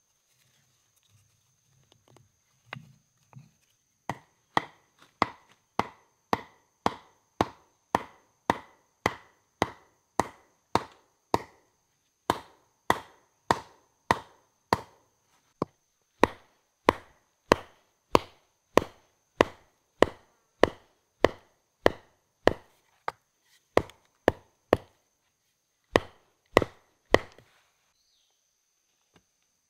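A tool chopping wood: a long run of even, sharp strikes, a little under two a second, each with a brief ringing note. There is a short break near the end before the last few strikes.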